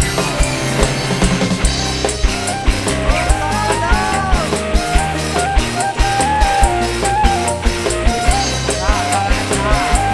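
Dangdut koplo band playing an instrumental interlude: a fast, even drum beat under a melodic lead line that steps and bends in pitch.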